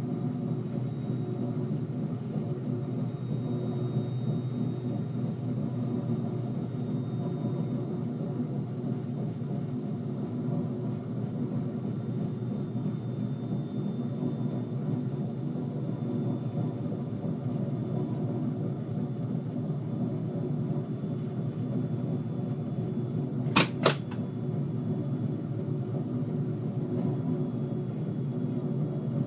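Cab ride in an NMBS AM62 classic electric multiple unit running steadily at speed: a continuous low rumble of the train with a faint steady hum above it. About three-quarters of the way through, two sharp clicks come in quick succession.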